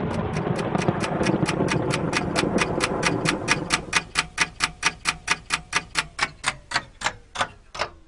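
Steady, sharp ticking at about four clicks a second, the gaps widening a little toward the end. It sits over a dense rumbling noise that fades out about halfway through, and a faint falling tone slides down in the second half.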